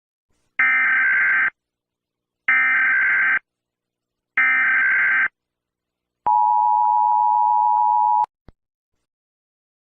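Emergency Alert System opening: three identical bursts of digital header data, a harsh warbling screech each about a second long with short gaps between them, then the steady two-tone attention signal held for about two seconds, cut off by a faint click.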